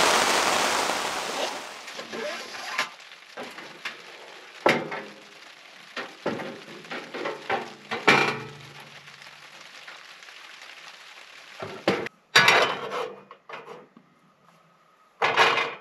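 Knocks and clatter of a frying pan and cookware being handled on a Flame King two-burner camp stove, in separate bursts with a loud clatter near the end. A steady rain noise fades out over the first two seconds.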